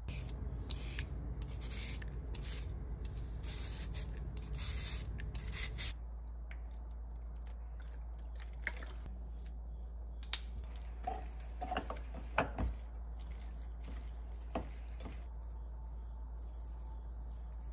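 Cucumber being shredded in a run of quick rasping strokes for about six seconds. Then comes quieter kitchen prep with scattered light clicks and taps.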